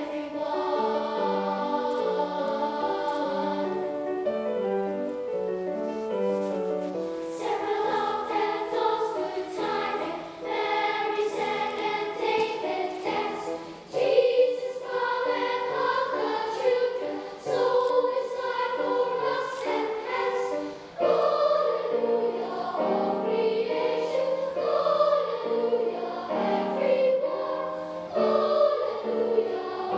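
Boys' choir singing in a concert hall, with held, shifting sung notes and a louder entry about halfway through.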